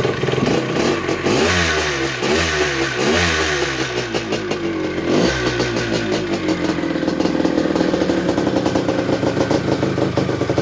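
1973 Yamaha MX250's single-cylinder two-stroke engine, freshly rebuilt, revved in several quick throttle blips. About six seconds in it settles into a steady idle.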